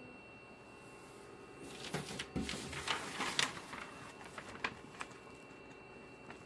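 Office copier humming steadily, then a large freshly printed sheet rustling and crackling for about two seconds as it is handled at the output tray, with a few single paper crackles after.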